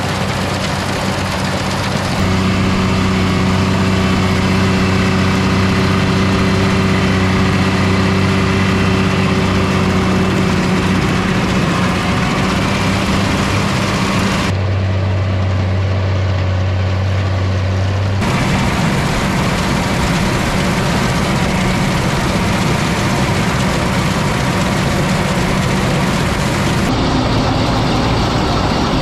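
Tractor engine running steadily, in several clips spliced together: the sound changes abruptly a couple of seconds in, about halfway, and again near the end.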